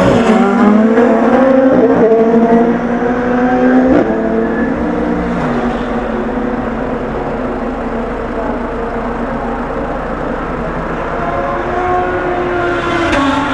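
Race car engines accelerating out of a slow chicane, revving up through the gears, loudest over the first few seconds and then fading into more distant engine noise. Another car's engine grows louder near the end.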